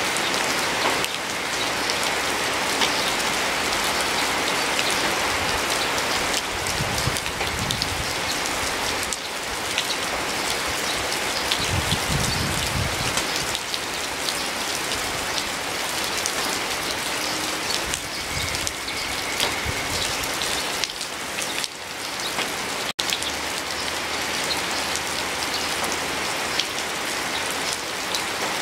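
Steady rain falling, an even hiss with many individual drops ticking close by. The sound cuts out for an instant about two thirds of the way through.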